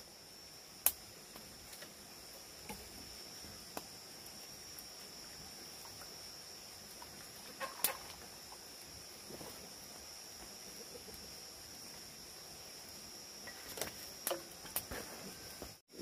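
Insects droning steadily in one high-pitched tone, with a few scattered small clicks and knocks, more of them near the end.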